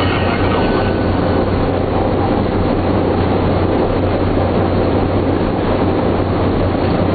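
The four Wright R-1820 Cyclone radial engines of a B-17 Flying Fortress running, heard from inside the aircraft's nose as a loud, steady drone with a low hum while the bomber rolls along the runway.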